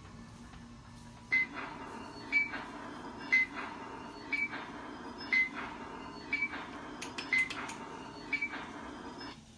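An electrical device hums steadily and gives a short, high beep about once a second, eight beeps in all. It starts about a second in and stops suddenly near the end.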